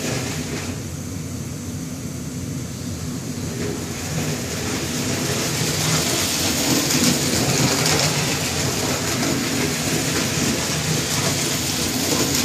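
Marx toy train engine with New York Central tender running on toy track: a steady electric motor whir and wheel clatter, growing louder from about four seconds in as the train comes round toward the microphone.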